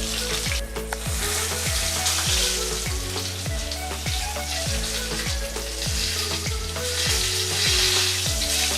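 Food frying in hot fat in a pan, a steady sizzle, over background music with a heavy beat of repeated downward-gliding bass notes.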